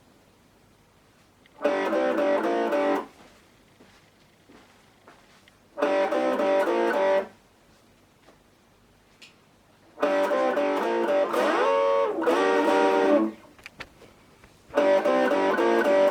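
Guitar playing four short phrases, each followed by a pause of a second or two. The third phrase is the longest and has a slide in pitch partway through.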